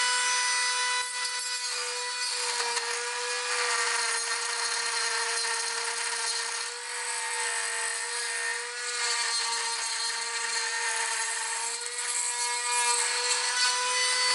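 Handheld rotary tool running at high speed, boring a hole through the plastic case of a 2.4 GHz transmitter module. A steady high whine, rougher with small dips in pitch while the bit cuts the plastic, cutting off suddenly at the end.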